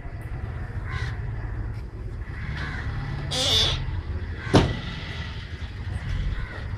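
A few short, harsh bird calls over a steady low rumble from the handheld microphone being moved about, with one sharp knock a little past halfway.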